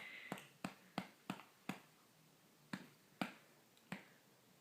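A hand patting a newborn baby's back to bring up a burp: about eight short, soft pats at uneven intervals, with a pause of about a second midway.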